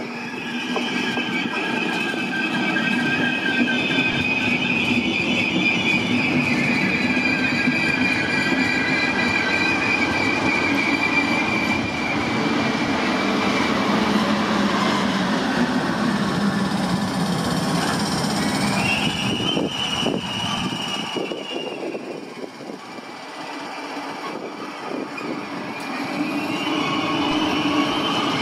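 Regional push-pull train of double-deck coaches, propelled by a DB class 112 electric locomotive, rolling past slowly with its wheels squealing in drawn-out high tones that slide in pitch over a steady running rumble. The noise dips about three-quarters of the way through and swells again as the locomotive comes alongside.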